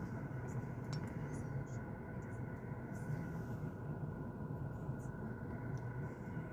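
Steady low hum of a car idling, heard from inside the cabin, with a few faint light clicks.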